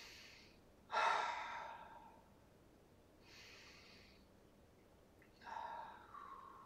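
A man breathing slowly and deeply while holding a stretch: a loud breath about a second in, a quieter one around three and a half seconds, and a longer breath near the end with a little voice in it.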